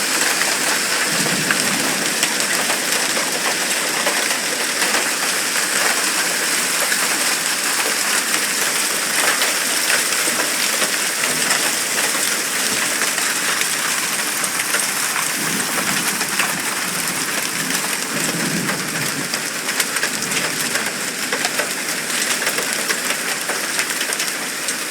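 Hailstorm: hail and heavy rain pelting down in a dense, steady clatter of countless small impacts. A few brief low rumbles rise and fade within it.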